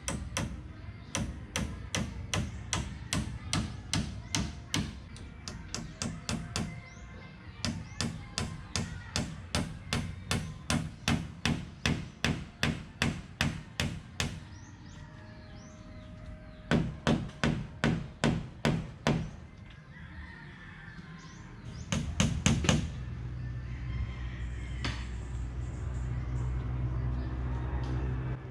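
Runs of sharp strikes on wood, about two to three a second, with pauses between the runs, over background music.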